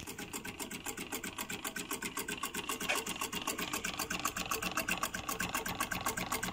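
Small homemade Stirling engine with glass-syringe pistons and a flywheel running fast, making a quick, even clicking rhythm of several beats a second.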